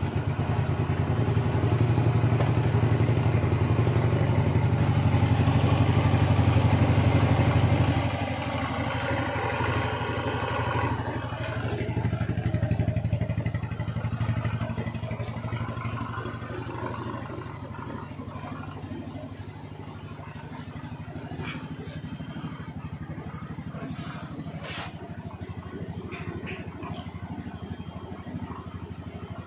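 Yamaha Mio scooter's single-cylinder four-stroke engine running, held at raised revs for about eight seconds and then settling to a lower idle. It runs without the earlier rough noise, with its camshaft and cam chain freshly replaced. A few sharp clicks come near the end.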